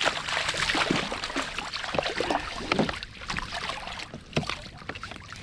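Hooked fish splashing and thrashing at the water's surface as it is played in close to the boat, a run of irregular splashes that eases somewhat after about three seconds.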